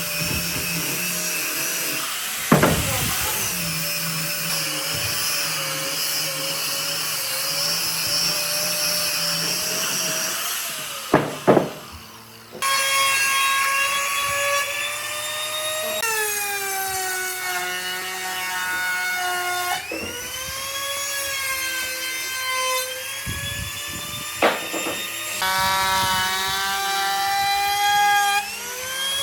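A high-speed power tool working wood, its motor whine sagging and recovering in pitch several times as it is loaded and eased off. It pauses briefly about twelve seconds in, and there are a few sharp knocks along the way.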